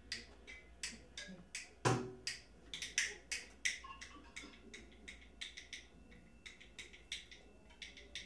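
Live hand percussion: a quick, uneven run of short, sharp clicking strikes, with one louder, deeper hit about two seconds in.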